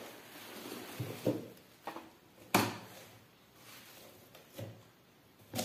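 Cardboard shipping box and bubble wrap being handled: a crinkly rustle as the wrapped package is pulled out, then several soft knocks of the box, the loudest about two and a half seconds in.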